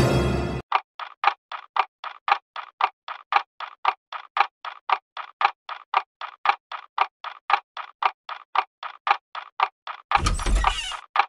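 A clock ticking steadily and quickly, about four ticks a second, alternating tick and tock. About ten seconds in, a loud burst of noise lasting about a second cuts across the ticking.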